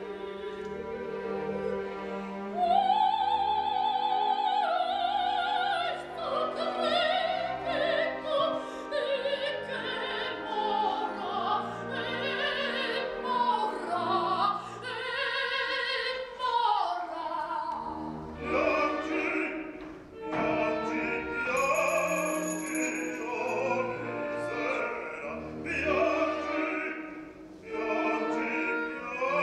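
Soprano singing an operatic passage with wide vibrato, accompanied by orchestra, growing louder about three seconds in.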